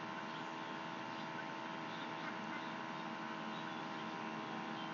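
Steady electrical hum with a hiss: the recording's own background noise between spoken letters.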